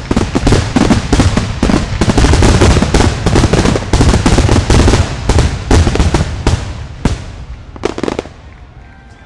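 Fireworks finale: a dense, rapid barrage of bangs and crackles from aerial shells, thinning out and fading over the last couple of seconds after a few final reports.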